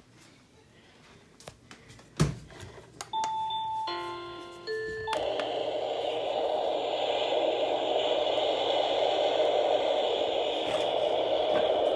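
A sharp knock about two seconds in. An owl-shaped night-light soother is switched through its sounds: a few short chime-like tones, then, about five seconds in, it settles into a steady hiss of soothing noise.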